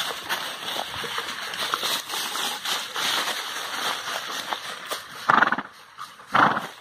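Footsteps crunching through dry leaf litter, then two loud barks from hunting hounds near the end, about a second apart.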